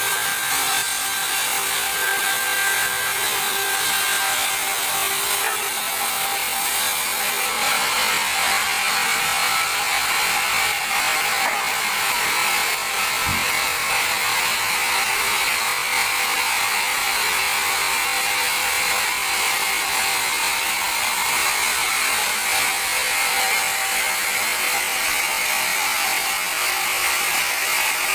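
Large band sawmill cutting lengthwise through a teak log, a steady, even sawing noise with no let-up.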